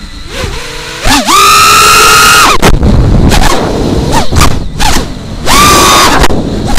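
Brushless motors and props of a 5-inch racing quadcopter (Emax 2205 2600kv motors, 5x4x3 props) whining under hard throttle. The pitch shoots up about a second in, holds high, drops off suddenly, and surges again near the end, with rushing wind noise in between.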